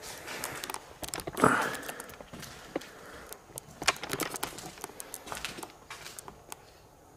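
Debris crunching and clattering: a string of sharp clicks and knocks, loudest in a scrape about one and a half seconds in.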